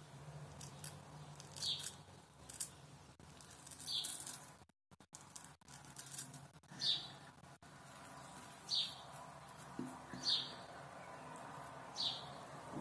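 Kamisori (Japanese straight razor) scraping through lathered stubble in short, crisp strokes, about one every second or two.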